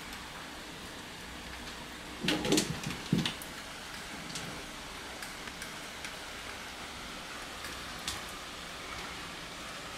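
Steady rain hissing outside an open window. About two to three seconds in come a short burst of knocks and rustling as the cat moves through the curtain at the window, and a single sharp click follows later.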